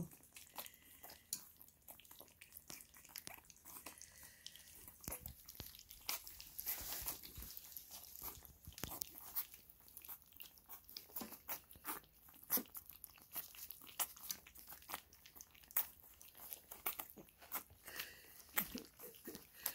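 Several young puppies lapping and slurping soupy mush from a stainless steel feeding pan: a steady run of small, irregular wet clicks and smacks.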